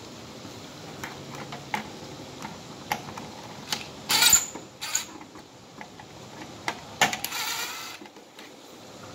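Clicks, knocks and scraping of a plastic Simplex horn strobe being pulled from its mounting plate and handled. There are scattered light clicks, and two louder scraping rasps about four and seven seconds in.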